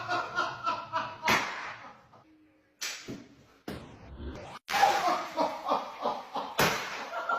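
People laughing and voicing, broken by several sudden sharp sounds, with a short quiet gap a couple of seconds in.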